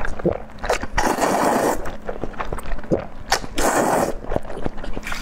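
Noodles in a dark sauce being slurped into the mouth, two long wet slurps, one about a second in and one near the end, with short chewing clicks between them.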